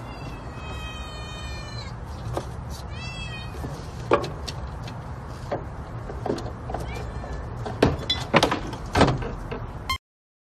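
A cat meowing twice: one long meow, then a shorter one that rises and falls about three seconds in. After that comes a string of sharp knocks and clatters as the cat pushes through the slats of window blinds.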